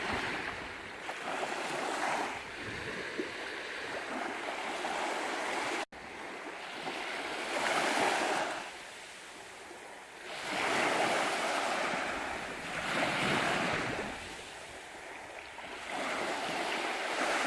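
Small sea waves washing onto a beach. The rush of water swells and fades every two to three seconds. The sound drops out abruptly for an instant about six seconds in.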